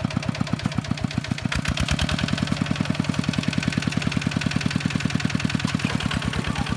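Single-cylinder Kubota diesel engine of a walk-behind paddy tractor running steadily, an even fast chug of about ten beats a second. About a second and a half in the sound turns brighter and a little louder.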